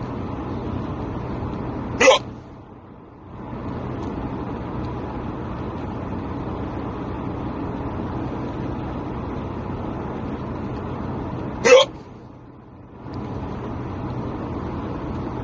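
A person hiccuping twice, about ten seconds apart, each hiccup short, sharp and louder than everything else, over the steady noise inside a car.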